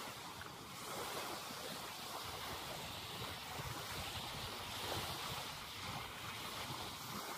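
Small sea waves breaking and washing up a sandy shore in a continuous, gently swelling wash, with wind buffeting the microphone.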